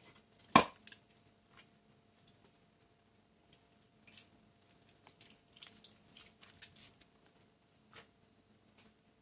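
A balloon popping with one sharp bang about half a second in, followed by scattered faint crackles and rustles.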